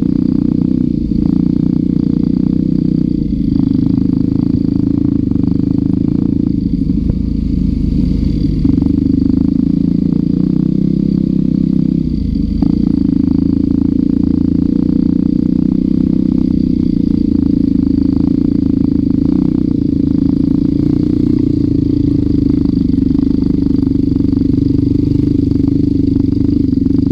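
Dirt bike engine running steadily at trail speed, heard close up, with frequent clattering as the bike rides over a rough dirt trail.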